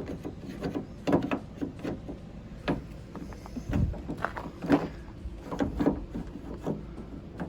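Irregular clicks, taps and knocks of a replacement exterior door handle being worked into a 2001 Toyota Tacoma's door, with a few duller thumps.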